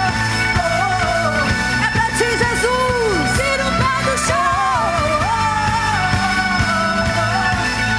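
Live gospel rock band playing, with a singing voice carrying a melody over sustained chords and a steady beat.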